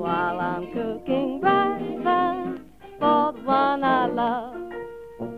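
Early-1930s popular song recording: a woman singing over a small dance band with plucked strings. The sound is thin and narrow in range, like an old 78 record, with held notes near the end.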